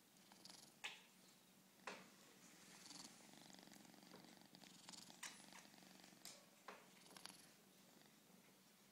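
Kitten purring faintly and steadily close to the microphone, with a few brief soft knocks scattered through it.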